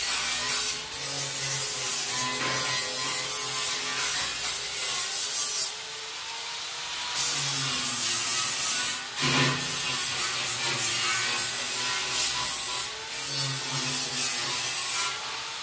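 A small electric power tool working against wood: a steady high motor whine over a rough rubbing that rises and falls as it is worked. It stops for about a second and a half partway through, then starts again.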